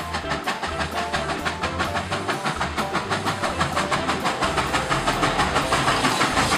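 Steam locomotive sound effect: steady, rapid chuffing in a fast, even rhythm, with a rail clickety-clack character.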